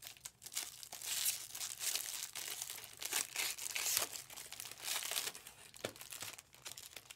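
A thin clear plastic card sleeve and a chrome trading card handled close to the microphone, crinkling and rustling in quick irregular bursts with small clicks, busiest in the first few seconds and quieter near the end.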